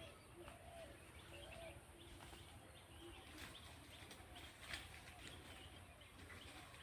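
Faint outdoor ambience with a low steady rumble and a few soft, short bird chirps.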